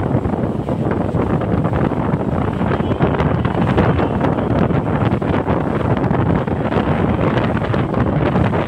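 Steady, loud wind buffeting the microphone of a speeding motorboat, mixed with the boat's engine and the rush of its churning wake.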